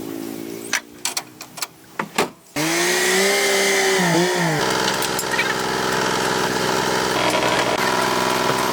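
A few sharp knocks, then a power tool's motor starts about two and a half seconds in, wavers in pitch and settles into a steady, loud run.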